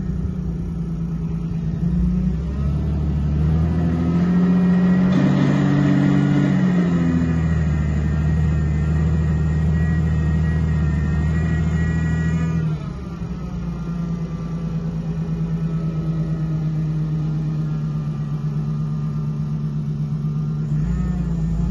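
Linde H80T LPG forklift engine speeding up from about two seconds in as the hydraulics raise the mast and forks. It holds the higher revs with shifting pitch for about ten seconds, then drops suddenly about thirteen seconds in to a steady lower running sound while the forks come down.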